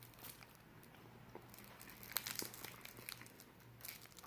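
Someone eating a frozen ice pop: faint scattered crunching and crackling clicks, more of them in the second half.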